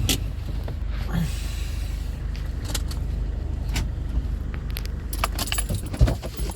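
A vehicle engine running steadily at idle, with jingling like keys and scattered sharp clicks that bunch up in the last second or so.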